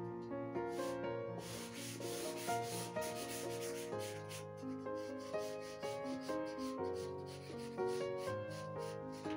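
Charcoal rubbing and scratching across drawing paper in rapid, repeated shading strokes, starting about a second and a half in, over background music of held notes.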